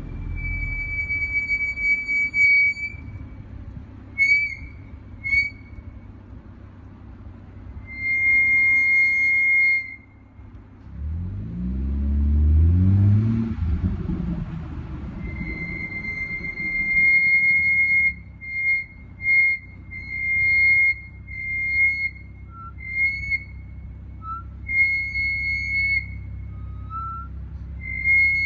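Front brakes of a BMW 440i F36 with M Performance brakes squealing, a high steady squeal that comes and goes: long stretches at first, then many short squeals close together in the second half. The pads still have plenty of material and wear evenly, so the owner cannot say what causes it. A low engine sound rises in pitch briefly about halfway through.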